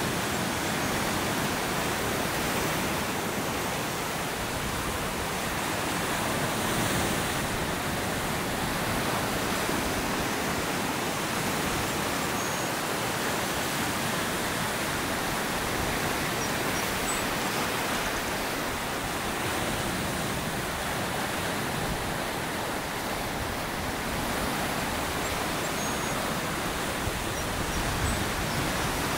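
Ocean surf breaking and washing over rocky ledges: a steady rush of water noise.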